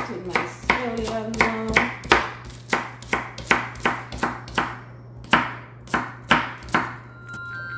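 Chef's knife chopping scallions on a wooden cutting board: a steady run of sharp knife strikes, about two to three a second, that stops shortly before the end, where light chiming music comes in.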